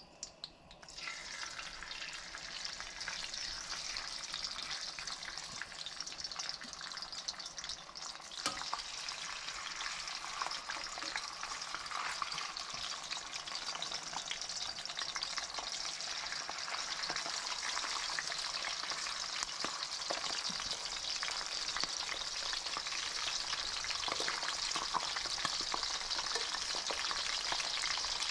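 Chicken skins frying in hot oil in a cast iron skillet: a steady sizzle with dense crackling that builds up about a second in and grows slightly louder, with one sharp click about eight seconds in.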